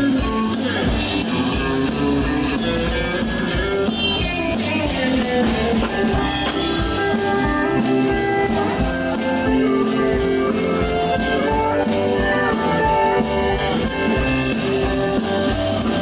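Live country band playing an instrumental passage: guitars over a steady drum-kit beat, with a hand-shaken tambourine-style percussion part.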